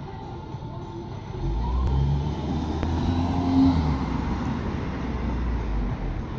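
A motor vehicle passing on the street, its low engine rumble building from about a second and a half in, loudest around the middle, then easing off.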